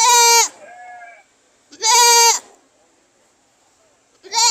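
Goat screaming: three loud, high, wavering bleats about two seconds apart, each about half a second long, with a softer, lower bleat just after the first.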